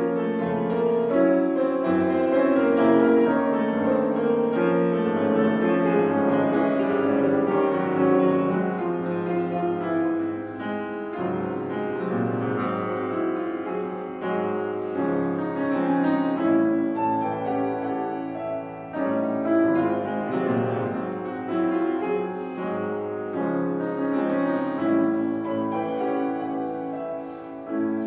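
Solo grand piano played in a live performance, a continuous stream of many notes and chords, louder for the first several seconds and somewhat softer after that.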